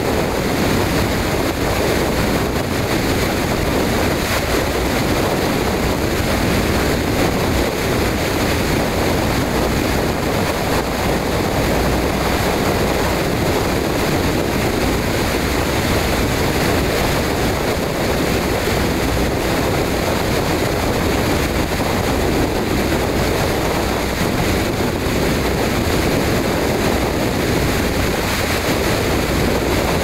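Torrential rain pouring down and splashing hard on the ground: a steady, dense rush of water that never lets up.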